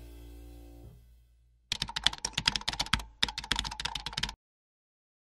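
Background music fading out, then a typing sound effect: two quick runs of rapid keyboard clicks with a short break between them.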